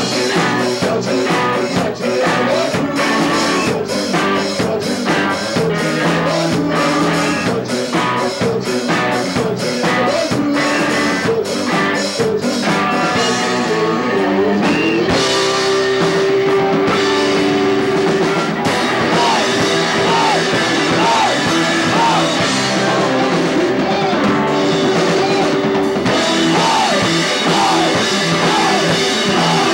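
Rock band playing live with drum kit, guitar and vocals: a steady drum beat drives the first half, then a held note sounds under sung lines from about halfway in.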